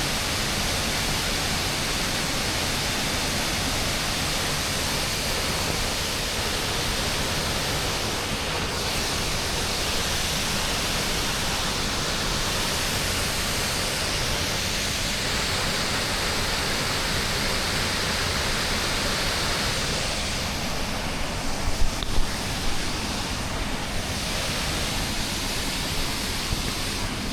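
Waterfall: a steady, even rush of falling water with no letting up, and a few brief low bumps about three-quarters of the way through.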